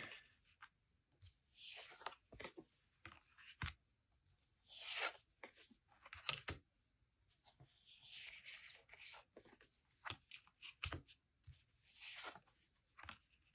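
Tarot cards being flipped and slid off two hand-held decks one at a time. The cards make faint papery swishes every couple of seconds, with a few light card snaps in between.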